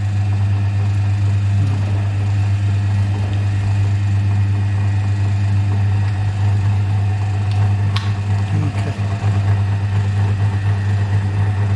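Myford lathe running steadily with a low hum, spinning a Unimat SL way bar for lapping. A single brief tick about eight seconds in.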